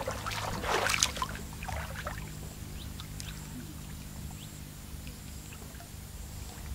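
Water sloshing and splashing, loudest about a second in, followed by lighter scattered splashes and drips.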